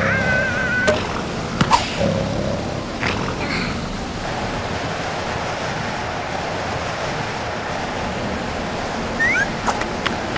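Cartoon sound effects: a larva character's squeaky, wavering voice and a few sharp clicks, then a steady rush of cold wind for several seconds, with short rising squeaks near the end.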